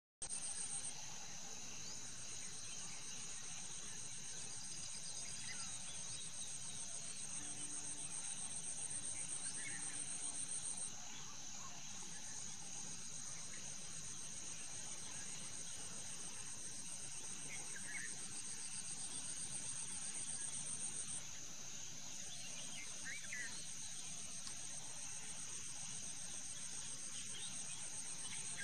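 Steady, high-pitched chorus of insects. Its highest strand cuts out briefly twice, about a third of the way in and again about two-thirds through.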